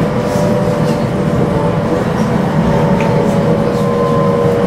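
Hokuetsu Express HK100 electric train running along the track, heard from inside the driver's cab: a steady low rumble with a thin, even whine over it.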